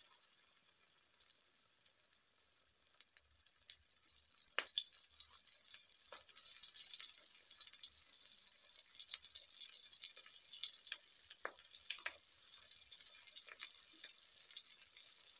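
Potato tikki patties shallow-frying in hot oil in a kadhai: a steady sizzle with sharp crackling pops. It starts faint and grows louder a few seconds in as the patties fry.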